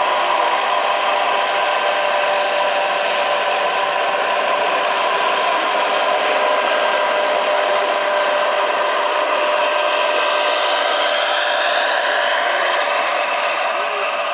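Gas turbine (PHT3) of a large radio-controlled Agusta A-109 scale helicopter running with a steady whine over the rush of its 2.4 m main rotor. Near the end the sound gets a little quieter and its pitch shifts as the helicopter moves away.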